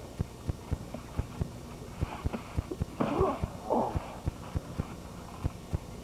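Dull thumps of feet and bodies landing on a trampoline mat, several a second in an uneven rhythm, with a few brief shouts about two and three seconds in.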